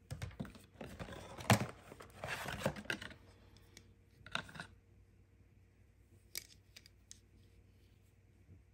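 Hands handling coiled cables and packaging: rustling and scraping with one sharp click about a second and a half in, a shorter burst of rustling around four seconds, then a few faint clicks.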